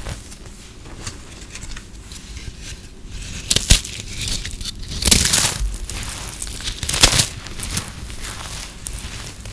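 Puffed-up microwaved soap crunching and crackling as it is broken apart by hand. Sharp cracks stand out about four, five and seven seconds in.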